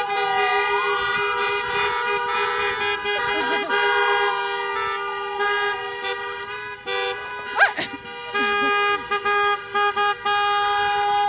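Several car horns honking together, held and overlapping, with a siren wailing up and then slowly down through the first half. In the second half the horns honk in short on-and-off blasts.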